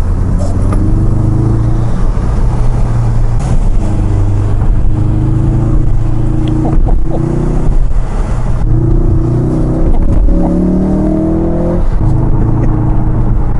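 Ford Focus RS Mk3's 2.3-litre turbocharged four-cylinder engine, heard from inside the cabin, accelerating through the gears: the engine note climbs in pitch, breaks at each upshift and climbs again, several times over.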